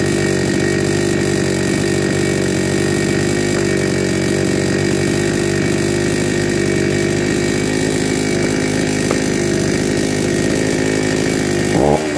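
Two-stroke chainsaw idling steadily, then revved up and down briefly near the end.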